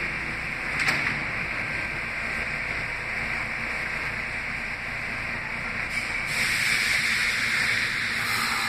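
Stopped R160B subway train at the platform: a steady hiss from the car's air and ventilation equipment. A single knock about a second in fits the doors closing. The hiss grows louder from about six seconds in.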